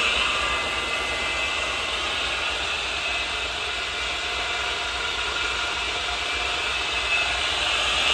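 Delta Milwaukee table saw's single-phase electric motor and blade running steadily at speed, with a steady high whine; everything sounds really good.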